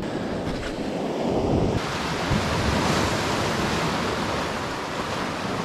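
Ocean surf breaking and washing over rocks and sand in a steady rushing wash, swelling a little about two seconds in.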